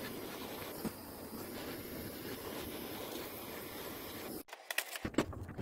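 Handheld propane torch flame hissing steadily while it heats a radiator bracket for soldering. The hiss stops suddenly a little over four seconds in, followed by a few clicks and knocks.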